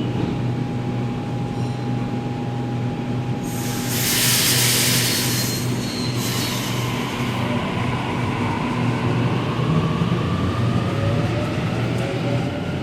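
Electric passenger train at a station: a steady low hum, a loud hiss of air a few seconds in, then a whine rising in pitch as the train moves off.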